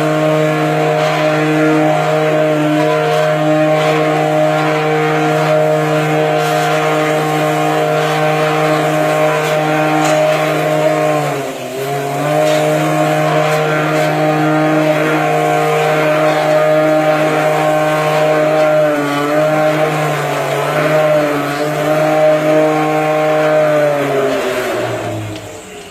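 The 2.2 kW spindle of a CNC marble machine running a wet sanding disc with a steady, even hum. Its pitch sags briefly about halfway through, then falls away near the end as the spindle winds down to a stop.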